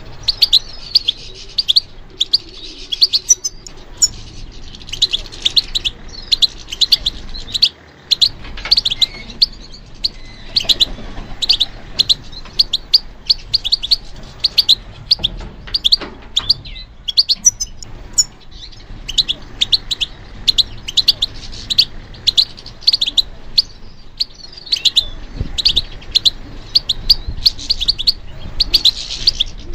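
European goldfinch singing: a fast, continuous run of short, high twittering notes, broken by a few brief pauses.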